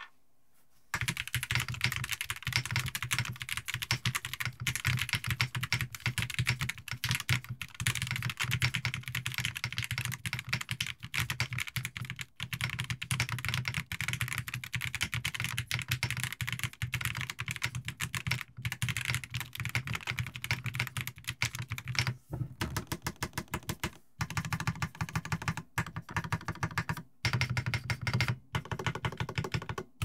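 Typing sound test on a Wuque Studio Freya aluminium mechanical keyboard with Gateron Unicorn linear switches and PCB foam. Fast, continuous keystrokes start about a second in, with a few brief pauses near the end.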